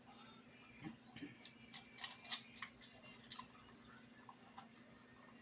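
Moluccan cockatoo working at a puzzle box stuffed with foraging material: irregular sharp clicks and cracks of beak on box and sticks, busiest in the middle, over a faint steady hum.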